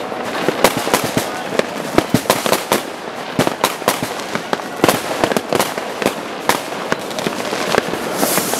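Rockets and firecrackers going off all over a city, a dense, unbroken run of overlapping bangs and pops, near and distant. A hiss comes in near the end.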